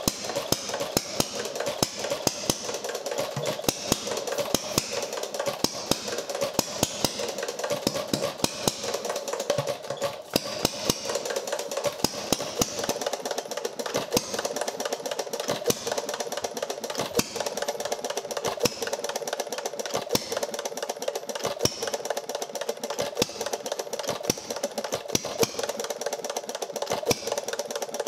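A quarter-horsepower Carlisle & Finch hit-and-miss gas engine from the 1900s–1910s running, with rapid sharp pops and clicks at uneven spacing over a steady mechanical clatter.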